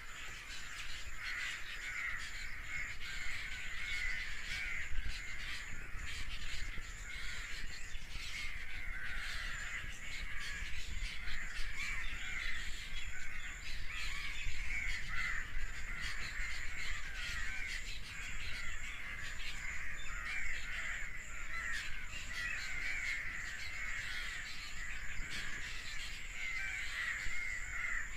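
A flock of birds calling all at once: a continuous, dense chatter of many overlapping chirps and caws.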